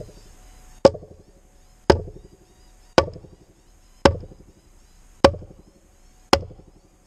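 Hammer blows struck down inside a timber-lined drain pit, evenly spaced about one a second, seven in all, each a sharp knock with a short ring.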